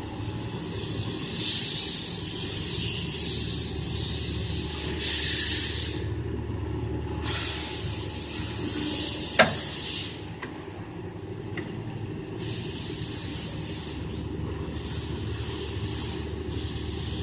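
1K62 screw-cutting lathe running with a steady hum from its spindle drive and gearbox, overlaid by a hiss that comes and goes several times. A single sharp click sounds about nine seconds in.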